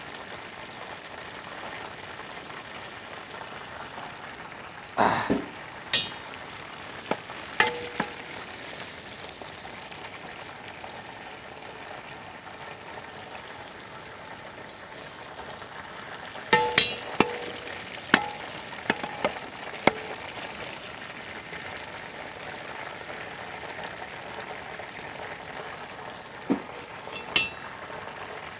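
Hot oil sizzling steadily as whole chickens deep-fry, with scattered sharp metal clinks and knocks from steel skimmer ladles, some ringing briefly, in clusters about five seconds in, in the middle and near the end.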